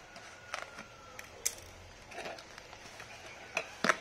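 Scissors cutting the packing tape along a cardboard box's seam: scattered sharp snips and clicks, with a short cardboard rustle about halfway and the loudest clicks near the end as the box is handled.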